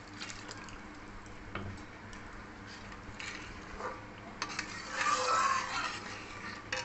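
Metal spatula stirring water into spinach paste in a kadai, scraping and tapping against the pan. A louder, wet scraping stretch comes about five seconds in.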